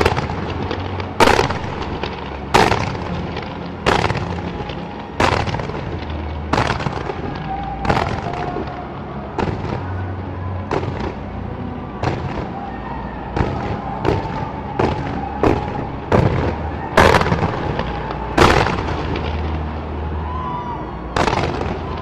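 Aerial fireworks shells bursting: a regular string of sharp bangs about every second and a half, with a steady low rumble between them.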